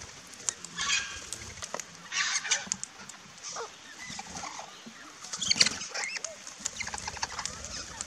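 A flock of rainbow lorikeets and king parrots calling at a feeder: harsh, screeching squawks, loudest about a second in, around two seconds and near five and a half seconds, with short whistled chirps and clicks in between.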